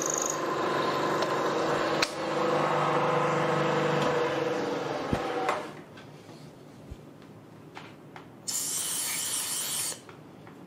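Milling machine running with a two-flute end mill cutting a keyway slot into the end of a Briggs & Stratton engine's steel crankshaft. The machine gives a steady note with a slight shift about two seconds in, then stops a little past halfway. Near the end comes a separate hiss lasting about a second and a half.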